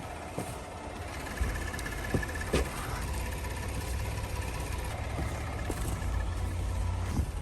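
Car engine running steadily, a low even rumble, with a few faint clicks over it.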